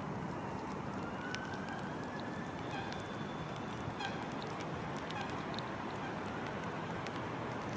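Canada geese giving a few faint drawn-out honks over a steady background hiss, with scattered light clicks.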